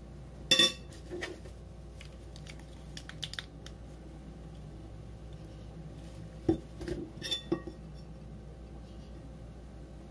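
Kitchen utensils clinking and knocking against dishes. A sharp ringing clink comes about half a second in, then light ticks over the next few seconds, then a group of clinks about six and a half to seven and a half seconds in.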